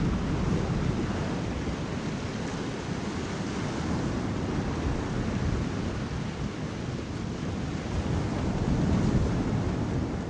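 Ocean waves and surf: a steady deep rush that swells and eases slowly, rising a little near the start and again near the end.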